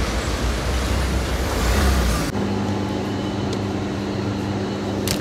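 Street traffic noise with a low rumble, then about two seconds in it cuts to a shop interior with a steady low electrical hum.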